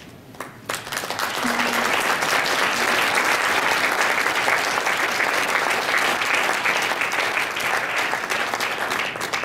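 Audience applauding: a few scattered claps, then within about a second steady, full applause that tapers off near the end.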